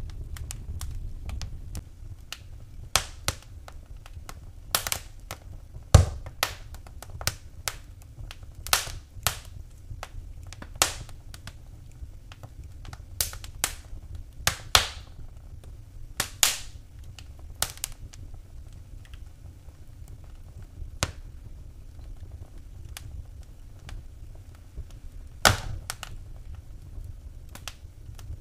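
Wood fire burning in a fireplace, crackling with irregular sharp pops and snaps, the loudest about six seconds in and again near the end, over a steady low rumble of the flames.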